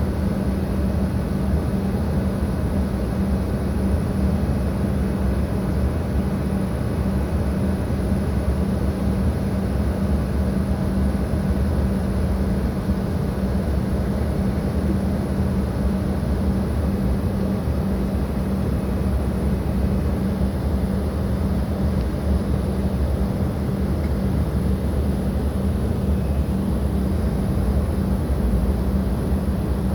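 Steady jet airliner drone: a constant low hum with rushing noise, unchanging throughout.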